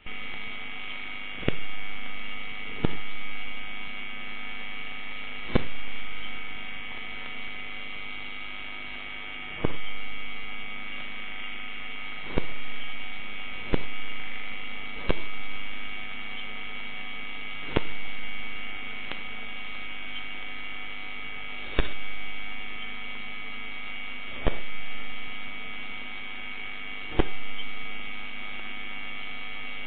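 Steady electrical hum on a CCTV camera's audio, broken by sharp ticks on a regular beat of about one every 1.3 seconds, with some beats missing. The ticks fit the pulses of the solar electric fence's energiser getting into the audio line. Each tick is followed by a brief rise in the hum that fades away.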